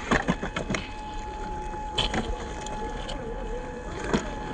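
HG P408 Humvee RC off-road truck, with its stock 550 electric motor, driving over rough ground. A quick run of knocks and clatters comes in the first second, with single knocks about two seconds in and near the end, over a thin steady whine.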